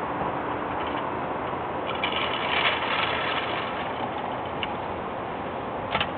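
Steady hiss of road traffic passing on a multi-lane road, swelling slightly about two seconds in, with a single sharp click near the end.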